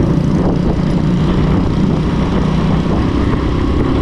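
Small motorcycle's engine running steadily under way on a dirt road, mixed with wind and road rumble on the microphone.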